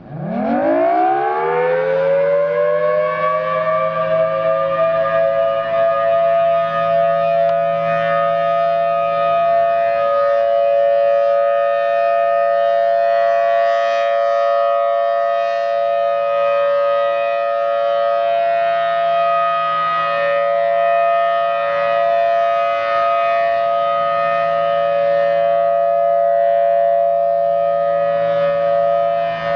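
Federal Signal Thunderbolt 1000T tornado siren starting up from silence: its pitch rises quickly over the first few seconds, then it settles into a loud, steady wail of two notes sounding together, with a faint low hum underneath.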